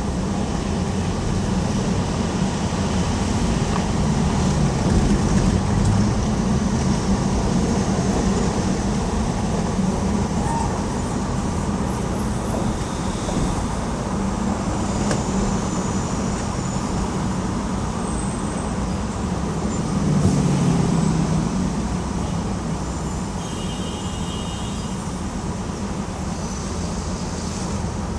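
Road traffic crossing the Queensboro (59th Street) Bridge: a constant low rumble of passing vehicles, swelling louder as a heavier vehicle goes by about twenty seconds in.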